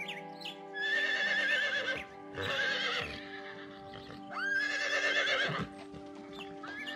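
Horses whinnying: three long, wavering calls, the last the longest, over background music with sustained notes.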